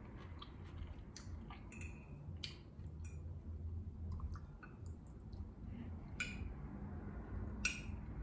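Metal fork clinking and scraping against a ceramic bowl of pasta, a handful of sharp clinks a second or two apart, with quiet chewing between.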